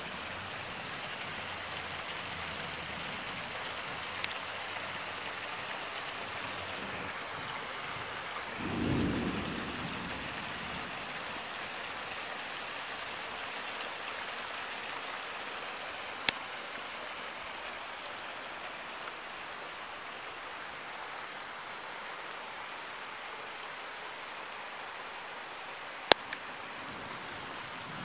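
Approaching thunderstorm: a steady hiss throughout, with a short low rumble of thunder swelling about nine seconds in. Three sharp clicks are spread through it.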